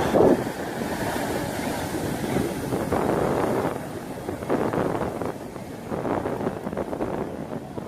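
Sea water washing on the shore with wind buffeting the microphone, swelling in surges a few times.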